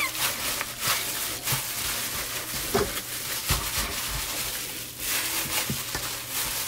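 Gloved hands punching and packing dry seasoned flour onto battered chicken in a stainless steel bowl: irregular soft pats and presses with a rustling, crunching of the flour.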